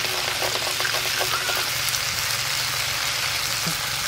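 Water spinach sizzling in mustard oil in a wide aluminium wok as it is stir-fried uncovered to dry off its water. A metal spatula makes a run of quick clicks and scrapes in the first couple of seconds.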